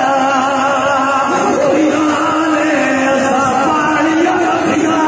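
A man's voice chanting a masaib lament through loudspeakers in long held notes that waver in pitch.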